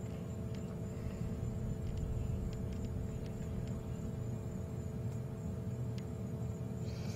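A steady low rumble with a steady hum under it, and about eight faint sharp clicks scattered through it from a leopard chewing on a steenbok carcass.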